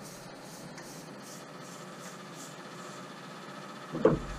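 A bristle brush stroking urethane along a wooden mast, a soft swishing about twice a second over a steady hiss. A single sharp knock near the end.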